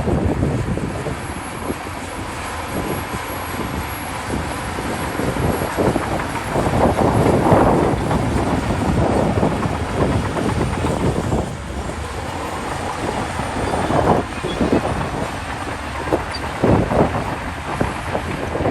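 Shantui DH17C2 bulldozer at work, its diesel engine running under load with the clatter of its steel tracks. The noise swells in louder surges a few times.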